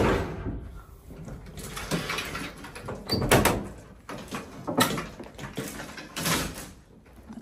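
Collapsible metal elevator gate clattering as it is pulled open, then the swing hoistway door being pushed open, with several rattling, scraping bursts about a second and a half apart.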